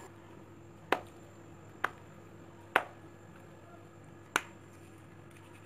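Hands shaping stiff dough over a steel bowl: four sharp clicks, the first three about a second apart and the last after a longer pause, over a faint steady hum.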